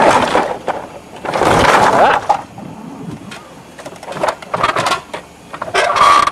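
Crashing and clattering: a run of noisy crashes and sharp knocks, loudest at the start and again from about one and a half to two seconds in, then scattered smaller knocks.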